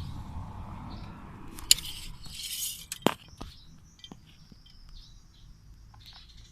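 Two sharp clinks, about a second and a half apart, with a short rustle between them, then a faint thin high chirping.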